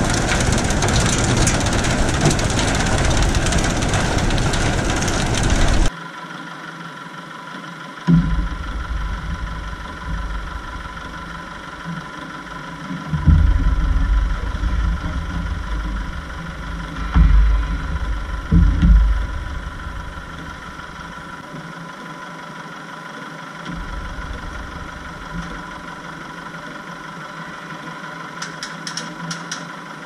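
Forage wagon running loudly, its conveyor chain unloading silage, until the noise cuts off sharply about six seconds in. After that a tractor idles steadily, with a few low thumps in the middle.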